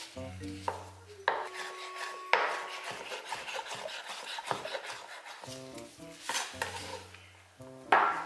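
Chef's knife cutting bacon on a wooden chopping board: a run of quick knife strokes and taps against the board, densest in the middle, over soft background music.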